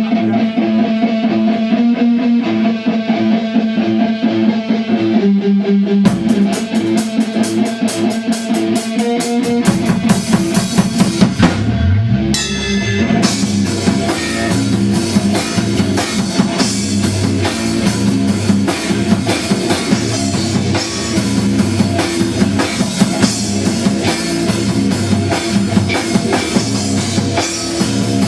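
Rock music, instrumental: an electric guitar figure plays alone at first, a fast ticking cymbal joins about six seconds in, and the full drum kit and bass come in about ten seconds in.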